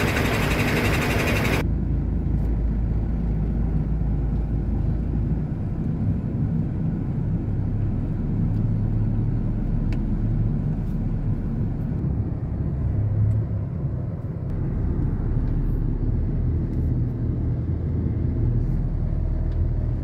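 Truck's diesel engine running, heard from inside the cab as a steady low rumble whose note shifts now and then. A loud hiss at the start cuts off suddenly about a second and a half in.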